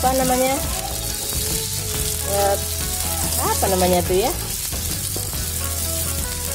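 Chopped shallots, chilies, tomatoes and petai beans sizzling in hot oil in a wok, stirred and turned with a spatula. Brief pitched sounds, like snatches of a voice, come near the start and again around four seconds in.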